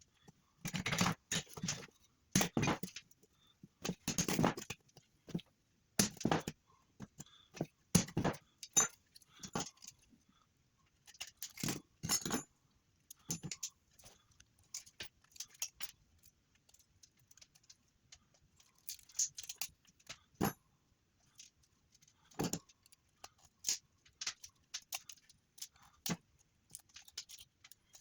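Irregular clinks, clicks and knocks of hand tools and kettle parts being handled and pried at while a tea kettle is taken apart, denser and louder in the first half.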